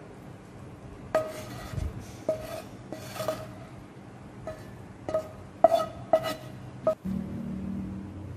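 Spatula knocking and scraping against a speckled non-stick frying pan while fried corn kernels are scraped out onto a plate: about eight sharp knocks, each with a short metallic ring. A steady low hum takes over near the end.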